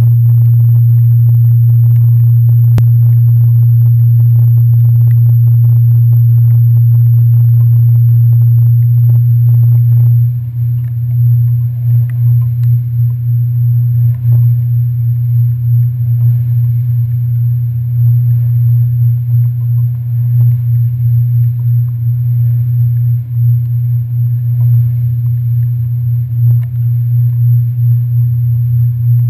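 Ferry engines droning as a loud, steady low hum; about ten seconds in the hum turns uneven and wavering.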